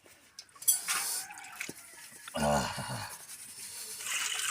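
A plate being washed by hand: it clatters sharply about a second in, and near the end water starts running and splashing over it.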